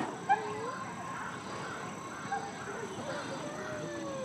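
Scattered animal calls: several short chirps and cries, and one long falling call near the end, with a sharp click at the very start.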